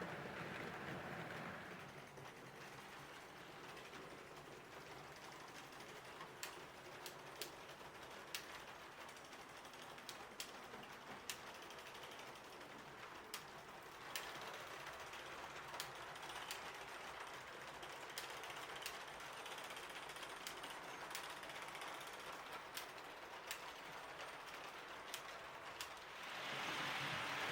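H0 model train running, a steady low whirr with irregular sharp clicks as the wheels pass over the rail joints.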